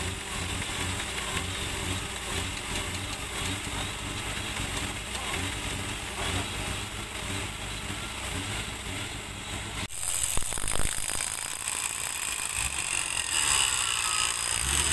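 An off-road 4x4's engine idling steadily, with some rattle. About ten seconds in the sound cuts abruptly to a quieter background.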